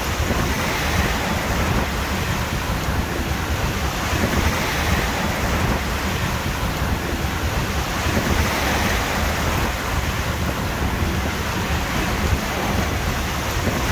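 Wind buffeting the microphone over the steady rush of waves at sea, with a heavy, fluttering low rumble from the wind.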